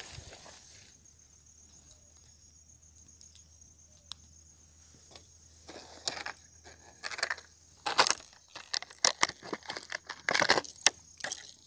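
Rummaging through a fishing tackle bag and handling a clear plastic lure packet, heard as a run of sharp rustles, crinkles and small clicks. These start about halfway through, after a quiet opening.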